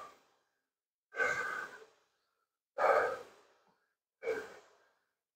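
A man breathing heavily: three audible breaths, about one every one and a half seconds, with silence between them.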